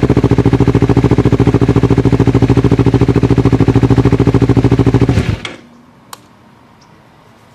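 Kawasaki Ninja 300's parallel-twin engine idling with a rapid, even exhaust pulse, then shut off abruptly a little over five seconds in. A faint click follows.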